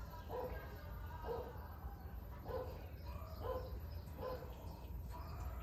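A dog barking repeatedly, about once a second, over the steady low hum of a washing machine draining.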